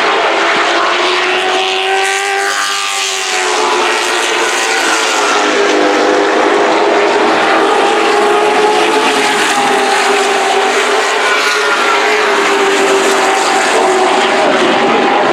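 Several super truck race engines running hard together as the pack laps the oval. Several engine notes sound at once, with a pitch sweep about two to three seconds in as trucks pass.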